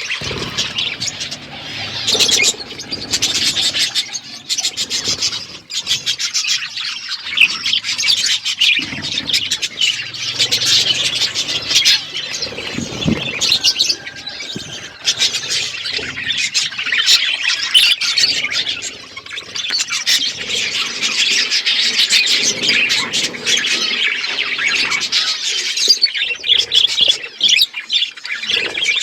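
Pet budgerigars and lovebirds chirping and chattering nonstop, many short high calls crowding over one another.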